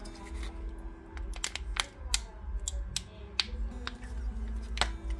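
A spoon clicking and tapping against a sour cream tub and a bowl as sour cream is spooned on top: about a dozen irregular sharp clicks.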